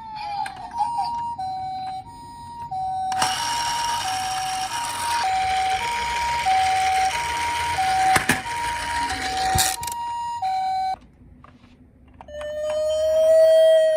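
A toy ambulance minicar's electronic siren playing the Japanese hi-lo two-tone (pee-po, pee-po), alternating steadily between two notes, with a rattling noise of the toy's wheels on the track from about three seconds in to nearly ten. The siren cuts off about eleven seconds in, and a second later another toy siren starts a single held tone that slowly falls in pitch.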